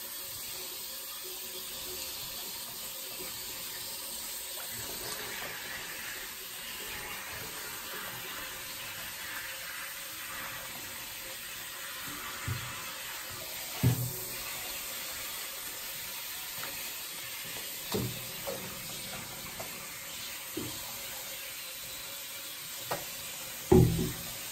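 Steady hiss of running water in a bathtub during a cat's bath, with a few short knocks scattered through, the loudest near the end.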